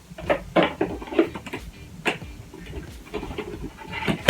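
Plastic cups being handled: irregular light knocks, clicks and scrapes, with a louder knock near the end.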